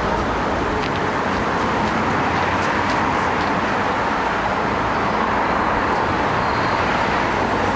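Steady, continuous noise of motor vehicles, an even rush with no breaks or distinct events.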